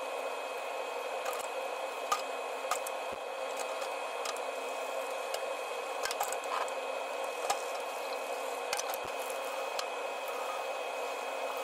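Lab glassware being washed by hand at a sink: a steady rush of tap water, with scattered light clinks of glass against a wire basket.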